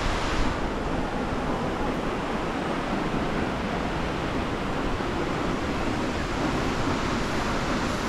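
Steady rushing roar of a tall waterfall and the river below it, an even noise with no break.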